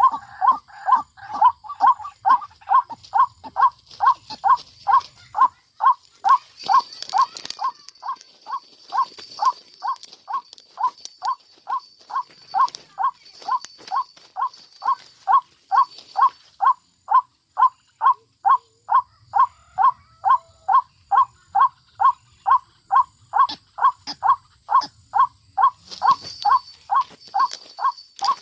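White-breasted waterhen calls: one short note repeated steadily about twice a second.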